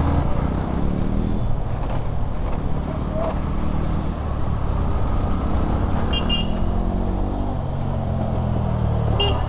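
Motorcycle engine running while riding in traffic, its pitch rising and falling with the throttle, under a constant rumble of road and wind noise. Short horn toots come about six seconds in and again near the end.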